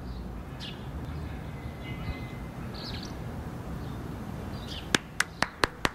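Outdoor city ambience: a steady low traffic rumble with a few faint bird chirps. Near the end, a quick run of five sharp taps, about four a second.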